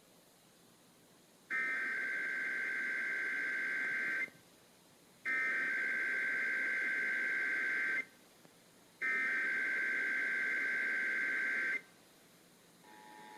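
Emergency Alert System SAME header broadcast over FM radio: three identical bursts of digital data tones, each about two and a half seconds long, about a second apart. Near the end the quieter two-tone EAS attention signal begins.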